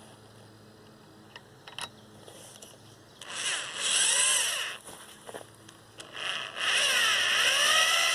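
Corded electric drill working into the treated-wood frame in two runs: a short one about three seconds in and a longer one from about six seconds, the motor speeding up and slowing so its pitch rises and falls. A couple of light clicks come before the first run.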